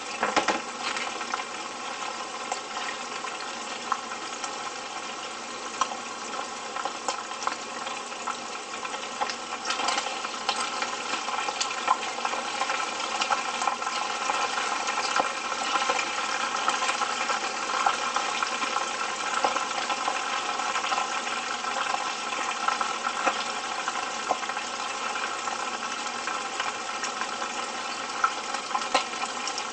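Chicken pieces deep-frying in oil in a small frying pan: a steady, dense sizzle with many small crackling pops.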